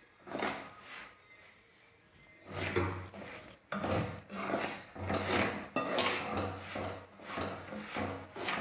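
A spoon scraping and stirring salt being dry-heated in a metal pot, in rough rasping strokes, two near the start and then about one a second from a couple of seconds in.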